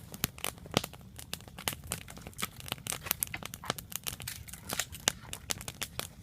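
Wood campfire crackling, with many sharp pops coming at irregular intervals and varying in loudness.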